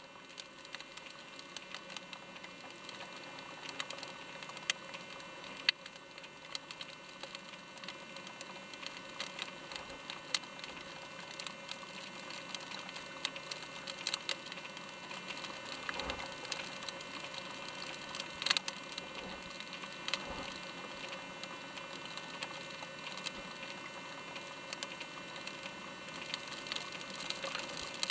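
Steady mechanical hum made of several fixed high tones over a faint wash of noise, with scattered light clicks and ticks.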